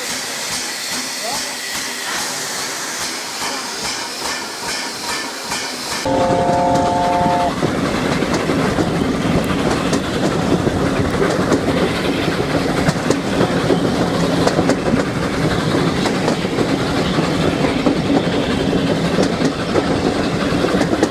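An LNER A4 streamlined steam locomotive standing and hissing steam. About six seconds in, the sound cuts to riding aboard a moving steam-hauled train, a steady rumble of wheels on rail with wind at the open window. A three-note chime whistle sounds for about a second and a half right at the cut.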